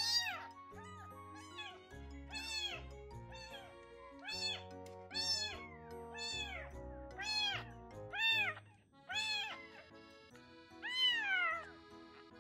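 Baby kitten meowing repeatedly in high, thin cries that rise and fall in pitch, about one a second, with a longer cry near the end, over background music.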